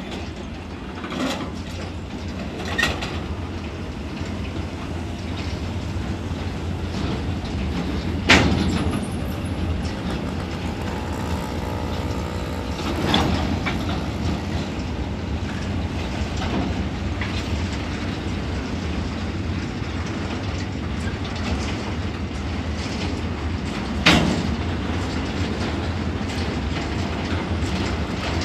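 Railway ballast hopper wagons rolling slowly along the track in a steady rumble. A few sharp metallic clanks from wheels and couplings stand out, the loudest about 8 and 24 seconds in.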